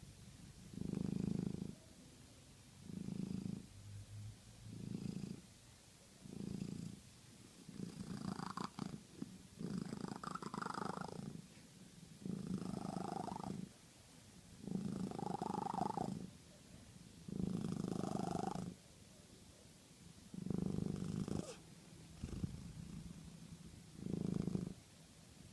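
A cat purring loudly in rhythmic bursts, about one every two seconds. Several of the middle bursts carry an added higher, rasping tone.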